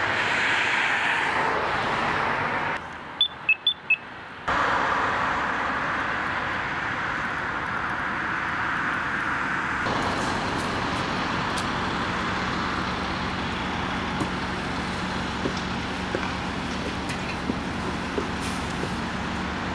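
Street traffic: a steady rush of passing cars' tyres and engines, broken about three seconds in by a short lull with four brief high beeps.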